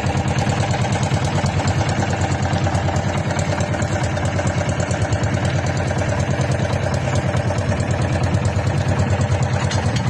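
Engine of a small motorized outrigger boat (bangka) running steadily under way, with a fast, even beat.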